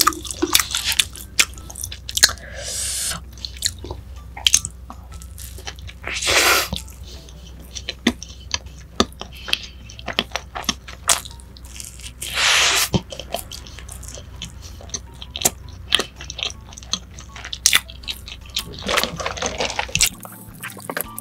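Close-up chewing and biting of a cheeseburger, with many wet mouth clicks and a few short hissing swishes; near the end a drink is sucked up through a straw.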